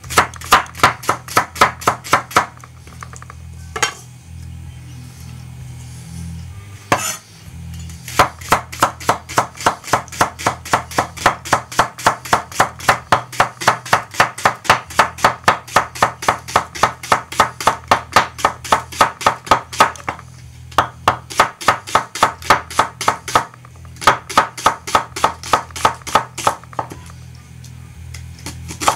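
Ikea Slitbar chef's knife chopping quickly on a cutting board, about four even strokes a second, in several runs broken by short pauses. Quiet background music underneath.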